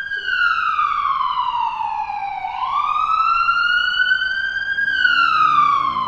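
A wail siren sweeping slowly in pitch: it falls for about two and a half seconds, rises for about two seconds, then falls again. Low steady music comes in near the end.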